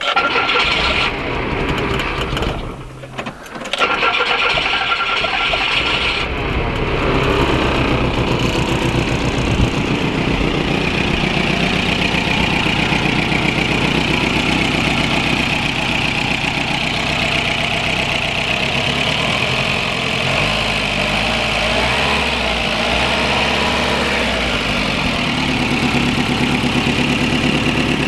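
Engine of a VW Mk1 Caddy (Rabbit) pickup being cranked and started. There is a short break about three seconds in; it then catches and keeps running steadily. It now starts, after a loose wire at the fuse block that stopped it starting was found.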